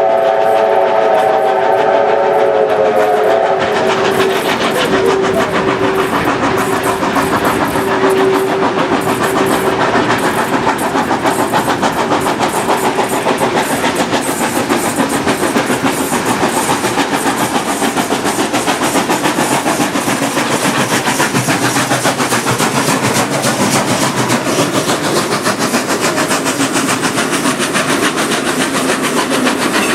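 Steam locomotive 3642 sounding its chime whistle for about three seconds at the start, a lower single whistle tone held on to about ten seconds in, then the train running steadily with the clatter of wheels on rails.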